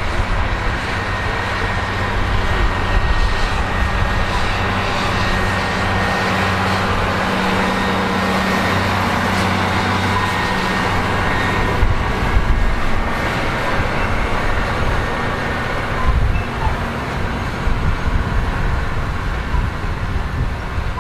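Big John Deere 9RX 830 tractor's diesel engine running steadily in the field, its drone shifting about halfway through, with a gusty rumble over it.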